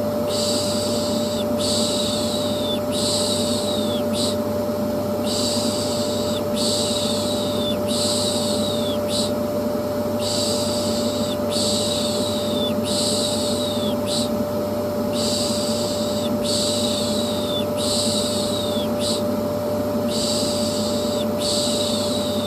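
Vacuum cleaner running steadily with a constant hum, overlaid with a person's drawn-out "shhh" shushing in sets of three, each set followed by a short pause, a soothing sound used to settle a colicky baby.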